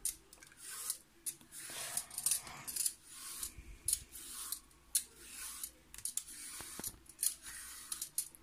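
Vegetable peeler scraping the skin off a zucchini in repeated short, rasping strokes.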